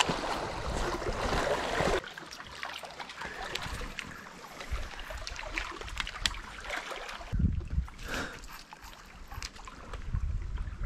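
Choppy lake water lapping against a rocky shore, with wind noise and scattered footsteps and small knocks. The sound drops to a quieter level about two seconds in.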